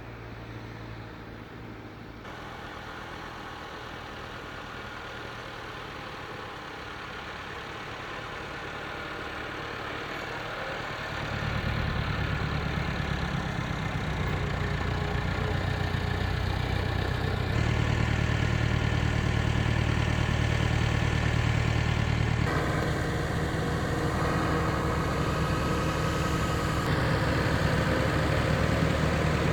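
Engine of heavy machinery running steadily, growing much louder about eleven seconds in.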